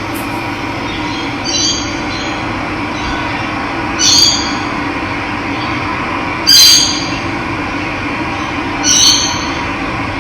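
Steady rush of running water, with a bird repeating a short, high, squealing call about every two and a half seconds, four times.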